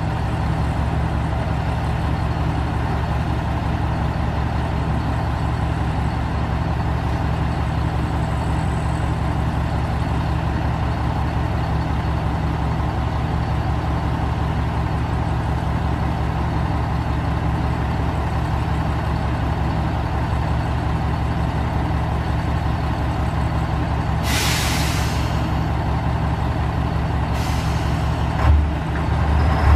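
Diesel engine of a JR Shikoku 1000 series railcar idling steadily while the car stands at a platform. Near the end, compressed air hisses twice, the first time for about a second, and just before the end the engine note changes.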